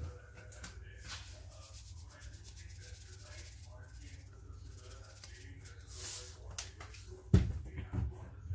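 Faint scraping and rubbing of kitchen things being handled, then two loud thuds near the end, such as a mixer-grinder jar or lid being set down.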